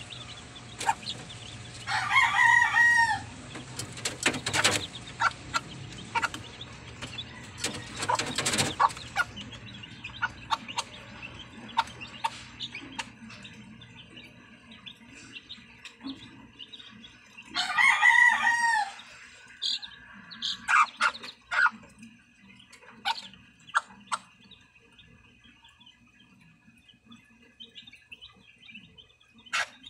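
Chickens in a coop: a rooster crows twice, once about two seconds in and again a little past the middle, each crow about a second long. Between the crows come scattered high chick peeps, hen clucks and sharp clicks.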